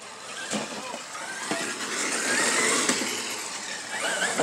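Traxxas X-Maxx RC monster truck's brushless electric motor whining under throttle on a 6S battery, the whine wavering and gliding in pitch and growing louder over the first three seconds, with drivetrain hiss and a few sharp knocks. A loud sharp knock comes at the very end.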